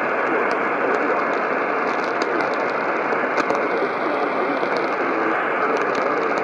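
Radio static: a steady hiss with scattered faint crackles.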